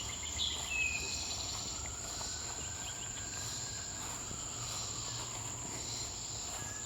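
Steady, high-pitched drone of an insect chorus: the narrator places Robinson's cicadas and trilling Say's trigs (small crickets) here. A short falling bird chirp comes about half a second in.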